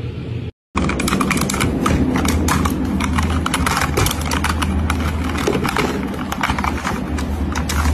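Mechanical computer keyboard keys clacking rapidly and irregularly under a cat lying and pawing on the keyboard, starting about a second in, over a steady low hum.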